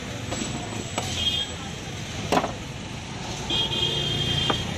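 Street traffic: a steady low rumble of passing vehicles, with high-pitched horn beeps twice, about a second in and again near the end, and a single sharp knock about halfway through.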